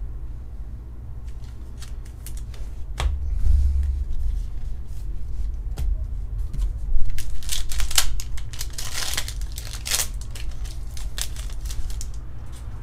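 Pokémon trading cards handled by hand: papery slides, flicks and clicks as cards are laid down and picked up, with a stretch of dense rustling about seven to ten seconds in and a low bump about three seconds in.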